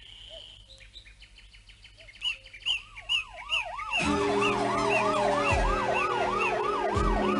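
Emergency siren on a van wailing rapidly up and down, about two and a half cycles a second, starting about two seconds in and growing much louder about four seconds in. Birds chirp before it.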